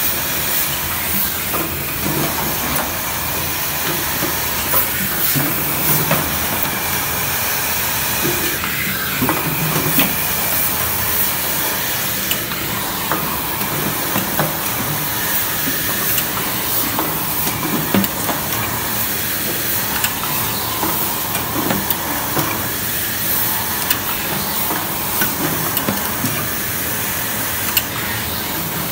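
Dry offset plastic-bucket printing machine running: a steady hiss of machinery with frequent short clicks and clacks scattered through it.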